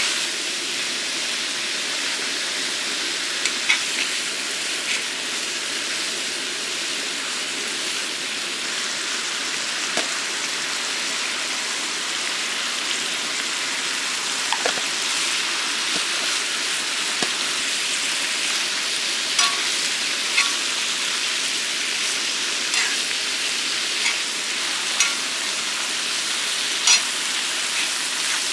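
Food sizzling steadily in a frying pan, with a few sharp clicks scattered through.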